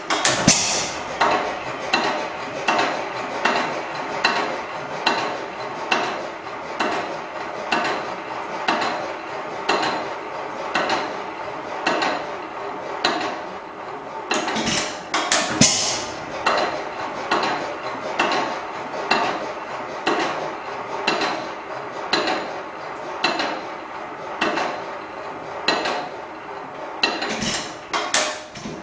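Hit-and-miss engine running, coasting between firings with an even clicking about one and a half beats a second. It fires with a louder pop about half a second in, again midway, and near the end.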